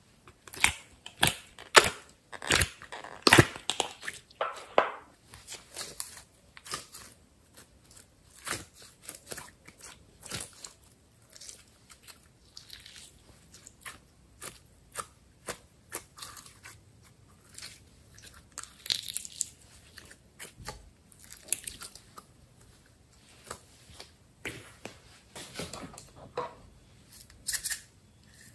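Soft, sticky slime squeezed and pulled apart by hand, making irregular crackles and sticky pops, with plastic containers handled now and then.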